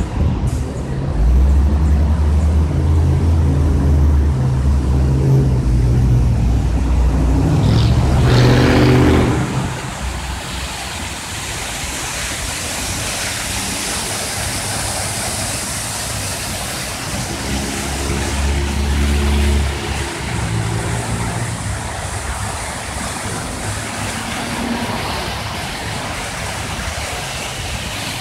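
City motor traffic: a vehicle engine runs loudly through the first ten seconds, rising in pitch near the end of that stretch, and another passes about eighteen seconds in. Between and after them, the steady hiss and splash of fountain water jets.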